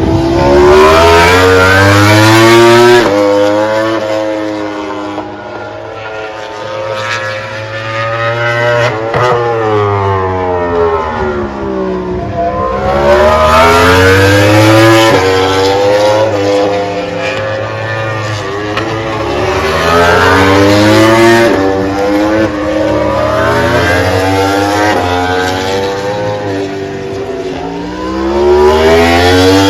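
MotoGP racing motorcycle engines at high revs on track, the pitch climbing in steps through quick upshifts and sliding down as bikes brake and pass. Several bikes go by one after another, loudest about two seconds in, in the middle, and near the end.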